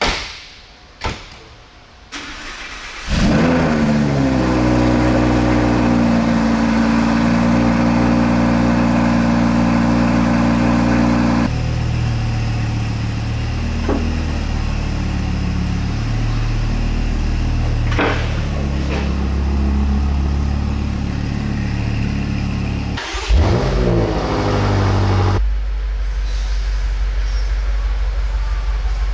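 Two sharp knocks, then a sports car's engine cranks and catches with a rising flare of revs and settles into a high idle that steps down to a lower idle several seconds later. A short rev comes near the end, and the engine then idles lower and steadily.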